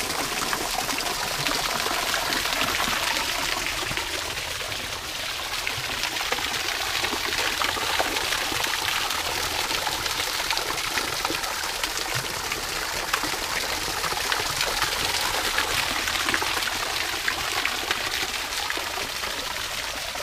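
Thin stream of water falling from a stone wall and splashing steadily into a small stone fountain basin.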